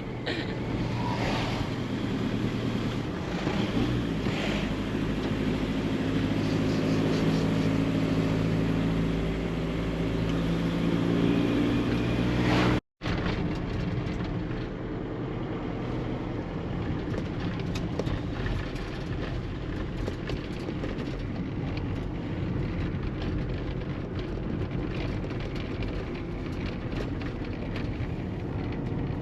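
Engine and road noise of a Caddy van heard from inside the cab while driving, the engine note climbing slowly over the first dozen seconds. A brief dropout about 13 seconds in, then a steadier rumble of engine and tyres on the road.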